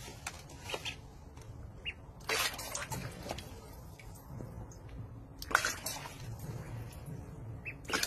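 Duckling splashing and diving in a plastic basin of water: splashes come about two seconds in, again midway, and once more at the end.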